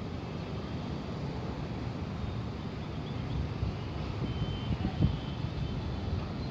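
Steady low outdoor rumble of wind and distant city traffic, with a few faint short high-pitched beeps about four seconds in.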